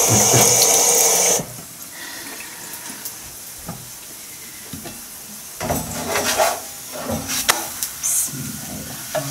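Tap water running for about a second and a half, then cut off suddenly. Quiet kitchen handling sounds and a few knocks follow as a katmer is turned over in a frying pan near the end.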